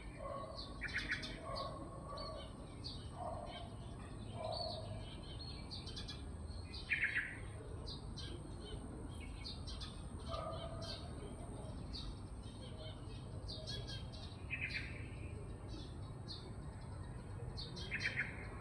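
Several birds chirping and calling, with short high chirps throughout and a louder call that comes four times, plus a few lower notes in the first few seconds. A faint steady high-pitched whine runs underneath.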